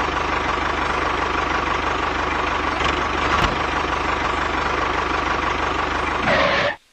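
A small engine running steadily with a fast, even beat, with a brief click about halfway through and a short louder surge near the end before it cuts off abruptly.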